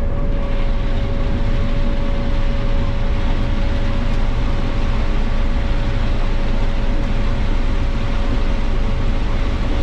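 Combine harvester running steadily while picking corn: a constant mechanical drone with a steady whine held over it.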